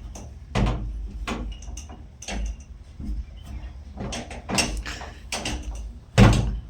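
A bolted door rattling and knocking against its latch in a series of separate jolts, with a louder bang about six seconds in.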